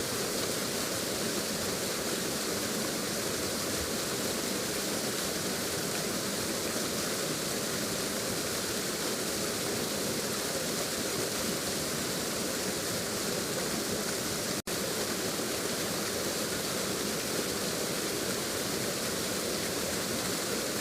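Waterfall: a steady rush of falling water, broken by a split-second gap about two-thirds of the way through.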